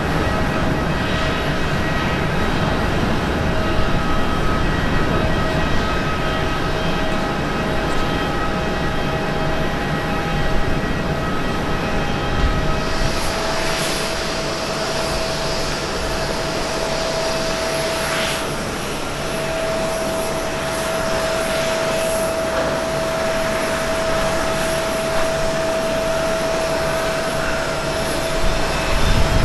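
Airbus A330-300 jet airliner's engines during the climb-out after takeoff: a steady rumble with steady whining tones. About halfway through this gives way to an Airbus A350-900's Rolls-Royce Trent XWB engines on the runway, a steady whine over a rushing roar that grows louder near the end as takeoff power comes on.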